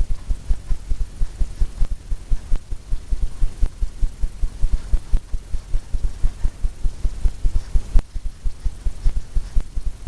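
Paint brush working quickly back and forth over a stretched canvas, each stroke a low thud from the drum-like canvas, several strokes a second at an even pace.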